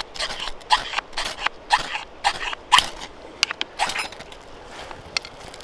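Knife scraped down a fire steel over a small steel wood-burning stove, about two strokes a second, throwing sparks into bark tinder. The strokes stop about four seconds in as the tinder catches, leaving faint crackling.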